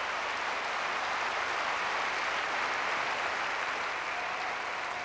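Tennis crowd applauding a point: steady clapping that eases slightly near the end.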